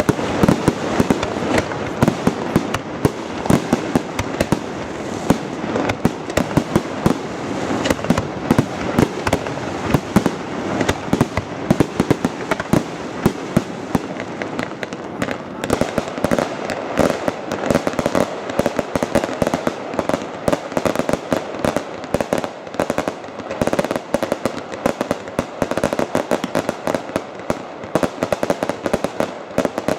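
Fireworks display: a dense, continuous barrage of bangs and crackles, many per second and without a pause.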